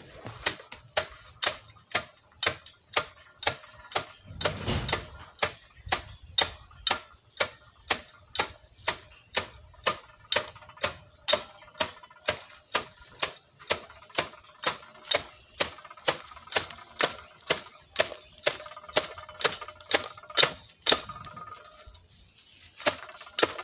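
Small cooking broom (ewedu broom) beaten in a pot of cooked jute leaves, knocking sharply against the pot about twice a second as it mashes the leaves into ewedu soup, with a short pause near the end.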